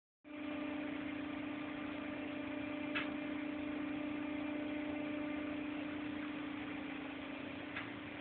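Steady machinery hum inside a crane operator's cab, with one constant low-pitched tone over a broad hiss. A faint click about three seconds in and another near the end.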